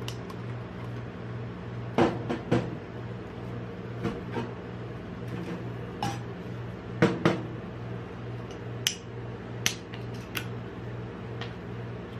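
An aluminium drinks can knocked, tapped and set down on a steel ice-cream cold plate, a dozen or so sharp metallic clicks and knocks, and its pull tab cracked open. Under them runs a steady hum from the cold plate's refrigeration unit.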